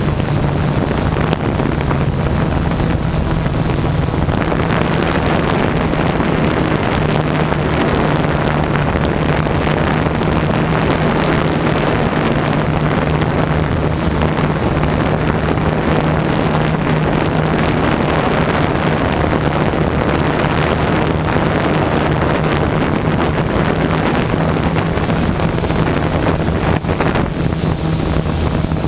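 DJI Inspire quadcopter's motors and propellers humming steadily in flight, one constant low hum, with rushing wind noise on the microphone.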